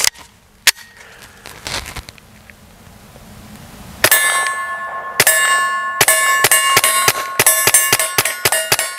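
Suppressed Taurus TX22 .22 LR pistol firing a rapid string of about a dozen shots, starting about four seconds in, each hit answered by the metallic ring of steel targets, which rings on between shots. Before the string, a few clicks and knocks of the pistol being handled.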